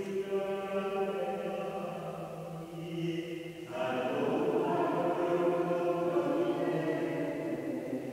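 Sung liturgical chant in long held notes, with a new, fuller phrase starting a little under four seconds in, in a stone-vaulted church nave.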